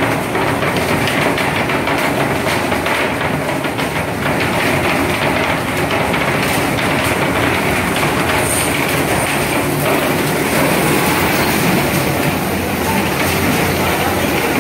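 Fishing vessel's deck machinery running with a continuous loud rattling clatter over a steady engine noise.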